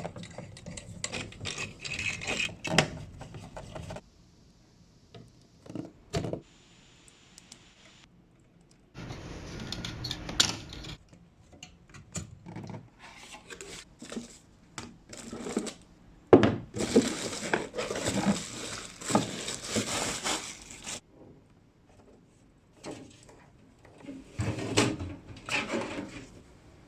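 Computer parts being handled and fitted: scattered clicks, light knocks and scraping, heard in several short stretches that start and stop abruptly.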